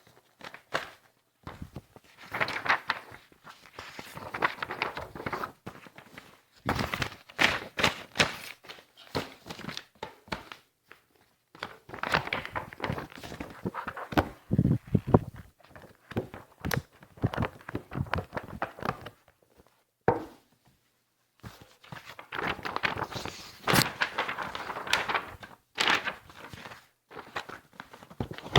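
Sheets of paper being handled close up: bursts of rustling and crinkling with sharp snaps and soft thumps, broken by short pauses.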